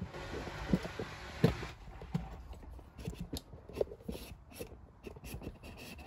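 Hoover Dynamic Next washer dryer running with its drum turning, laundry tumbling inside with irregular soft thumps and rustling. The scratchy noise is gone; the machine is working normally after its repair.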